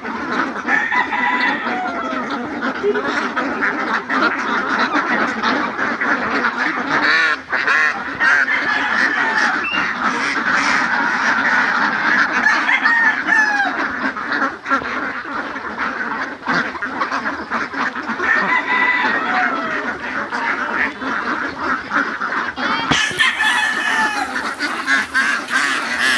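A large flock of domestic itik ducks quacking all at once in a dense, continuous chorus.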